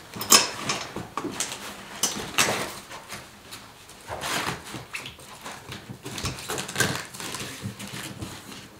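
Hook-and-loop (Velcro) strips being pressed together and pulled apart, making several short scratchy rasps as the pontoons' Velcro is fastened to the boat's mesh skirt.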